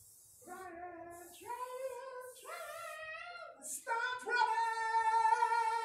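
A woman's voice singing short phrases, then a long held note with vibrato near the end, with a soft hiss at the start.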